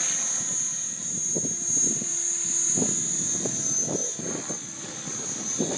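Align T-Rex 550E electric RC helicopter in flight: the motor and geared drive give a steady high whine over the whir of the rotor blades. The sound swells and eases as it manoeuvres.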